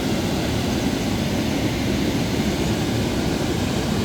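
Steady roar of falling water from the Manavgat waterfall, an even rumbling rush with no breaks.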